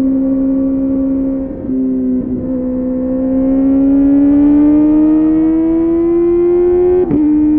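A Kawasaki ZX-4RR's inline-four engine through a Yoshimura AT2 slip-on exhaust, pulling under load at high revs. The pitch holds steady through two brief breaks, then climbs slowly for several seconds. Near the end it cuts sharply and drops to a lower pitch as it shifts up a gear.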